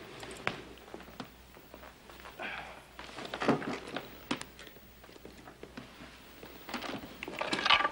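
Faint scattered clicks, knocks and rustling of a doctor's leather medical bag being packed and closed in a quiet room.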